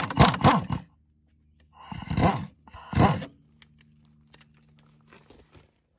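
Pneumatic impact wrench undoing the blade bolt of a lawn mower, hammering in short bursts: a longer one at the start, then two shorter ones about two and three seconds in. A faint steady hum lingers between and after them.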